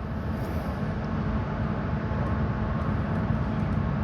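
Steady rushing background noise with a low hum underneath, growing slightly louder.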